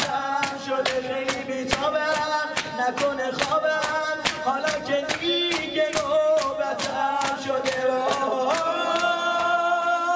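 A man's voice through a microphone chanting a mourning lament (noha) in long melodic lines, over a steady beat of sharp hand slaps about three a second, the chest-beating (sineh zani) that keeps time in Shia mourning gatherings. Near the end the chanted line is held on a long high note.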